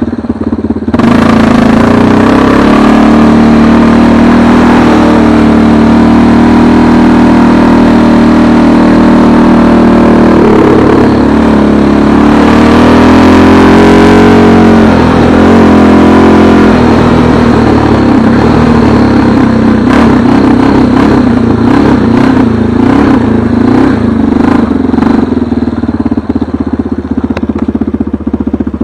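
A vehicle engine running under load, its pitch rising and falling between about ten and seventeen seconds in, with a run of short knocks or clatter near the end.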